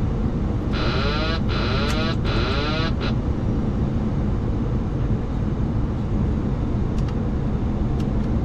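Boeing 737-800 autopilot disconnect warning wailing in three sweeping cycles over the steady rush of airflow and engine noise in the flight deck. The wail signals that the autopilot has been switched off for manual flying on the approach.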